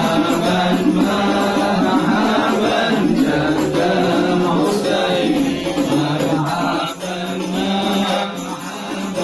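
A group of voices chanting Islamic devotional verses (sholawat) together in a steady, sung unison.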